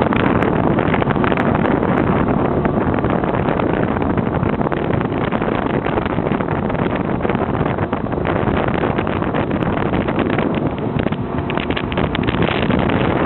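Motorboat running steadily under way, its engine mixed with wind buffeting the microphone.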